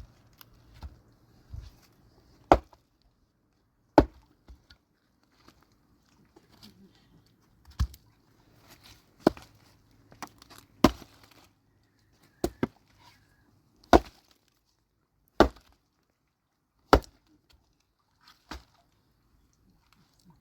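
Wood being chopped: about ten sharp, loud blows, mostly about one every one and a half seconds, with one longer pause early on between strokes.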